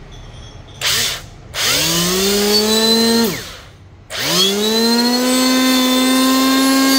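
Ryobi 450 W electric hand planer run with no load. It gives a short blip about a second in, then runs for under two seconds, its whine rising in pitch and then dropping away quickly as it stops. About four seconds in it starts again and climbs to a steady high whine.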